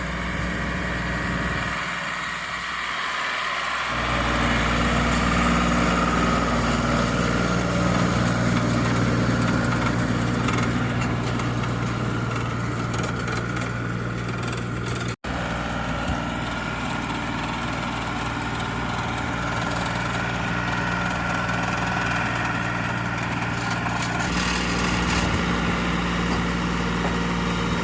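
A tractor runs steadily while pulling a round baler through a windrow of hay. Near the end, a rattle comes from the baler's bale indicator, the signal that the bale has reached full size.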